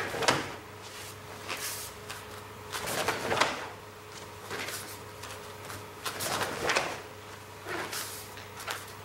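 Karate roundhouse kicks landing on a partner's body: a series of short thuds and the snap and swish of cotton karate uniforms, some coming in quick pairs, over a faint steady hum.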